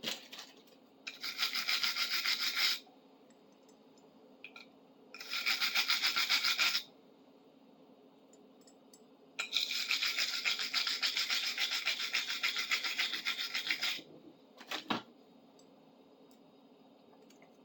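A stiff brush scrubbing a metal tool to clean it, in three bouts of fast rasping strokes: one about a second in, one around five seconds in, and a longer one from about nine to fourteen seconds. A short knock follows near the end.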